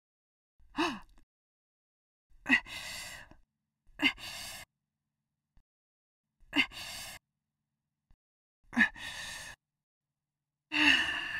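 A person's voice making repeated straining efforts: a short falling sound, then five short grunts about two seconds apart, each trailing off into a breathy sigh, with silence between them.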